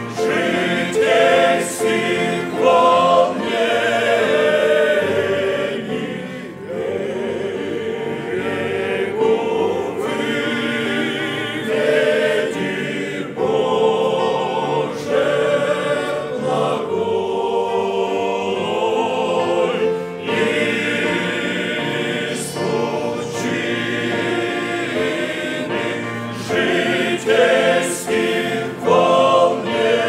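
Men's choir singing a Russian hymn.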